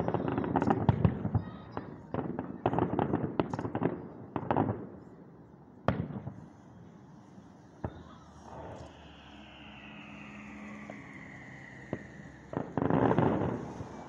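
Aerial fireworks bursting: a dense run of bangs and crackling for the first few seconds, a single sharp bang about six seconds in, a long whistle falling in pitch, then another burst of crackling bangs near the end.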